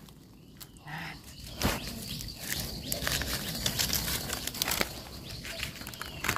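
Dry leaf litter rustling and crackling under a gloved hand working through it to cut and pull up wild mushrooms, with many small snaps and clicks.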